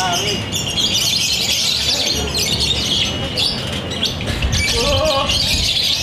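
Fischer's lovebird singing a long, unbroken run of rapid, high-pitched chattering. A man's voice cuts in briefly a little before the end.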